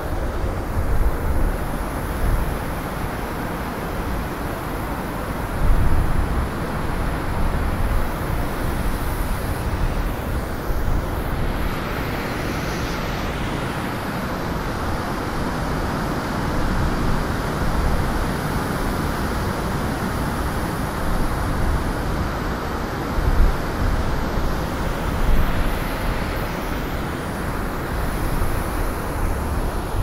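Snowstorm wind blowing in gusts: a steady rushing noise over a low rumble that rises and falls, swelling in the middle.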